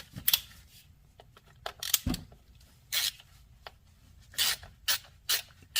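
18-inch Tekton half-inch-drive ratchet clicking in short, irregular bursts as it is worked back and forth on a hex socket, with a dull thud about two seconds in.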